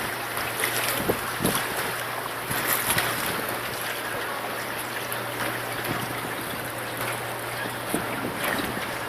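Water taxi's engine running with a steady low hum under a wash of water and wind noise, with a few scattered knocks.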